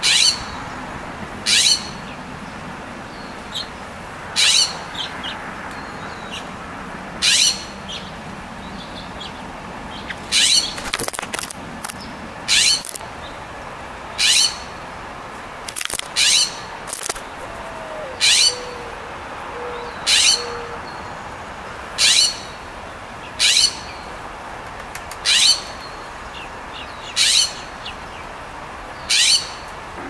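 A nearby small songbird giving a sharp, high chip call over and over, one short note every couple of seconds.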